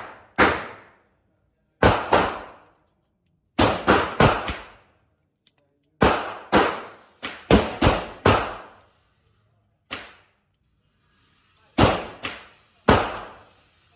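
Gunshots on an indoor shooting range, about eighteen in irregular strings of two to four, each a sharp crack that rings off in the range's echo.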